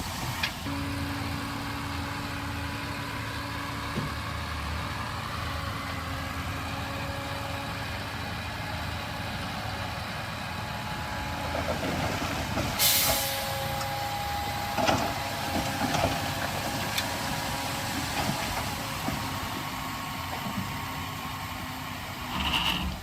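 Heavy diesel earthmoving machinery running steadily, with a loud short hiss of air about thirteen seconds in, like an air brake releasing, and a few knocks just after it.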